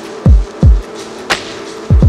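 Electronic background music: a steady synth chord over deep bass hits that drop sharply in pitch, with sharp snare-like hits between them.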